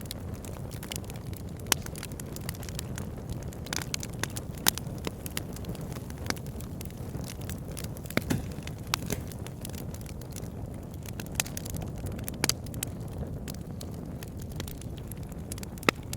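Wood fire burning in a fireplace: a steady low rumble of flames with irregular sharp crackles and pops, a few of them louder.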